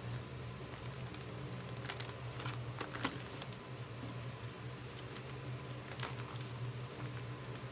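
Clear plastic packaging crinkling and crackling under hands as it is pressed, smoothed and lifted, with scattered sharp ticks and taps, over a steady low hum.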